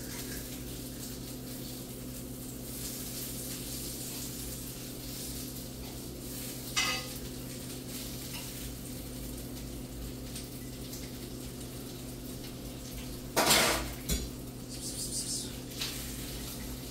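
Bacon sizzling in a frying pan, with a spatula clinking and scraping against the pan: a short clink about seven seconds in, then a louder clatter and a second knock just past thirteen seconds.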